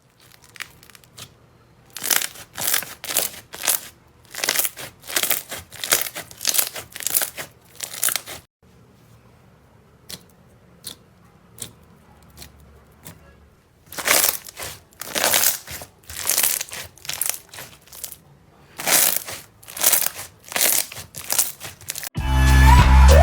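Slime being squeezed and pressed by hand, making crackling, squishing pops in quick repeated bursts of about two or three a second, with a pause in the middle. Music starts right at the end.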